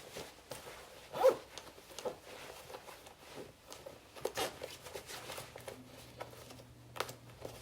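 A winter coat being handled and put on: fabric rustling and a zipper being worked, with one louder rustle about a second in.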